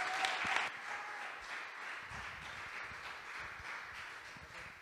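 Audience applauding: loud at first, then dropping about a second in and dying away gradually.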